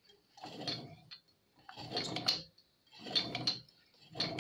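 Balkan MK3-50 moped engine being turned over, with a rough metallic grinding that comes in strokes about once a second. The grinding is the sign of worn left-side crankshaft main bearings.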